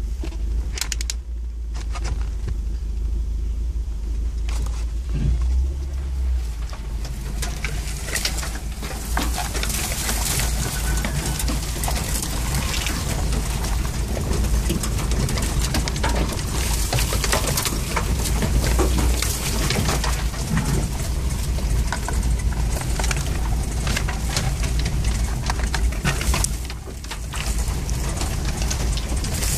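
Inside the cab of a 4x4 driving slowly over a rough dirt track: a low, steady engine drone, with a constant clatter of knocks and rattles from about seven seconds in as the vehicle rides over the bumps.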